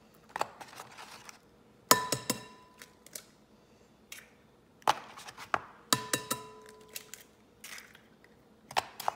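Eggs being knocked on the rim of a glass mixing bowl to crack them: several sharp taps, the loudest about two seconds in, several of them leaving the bowl ringing briefly.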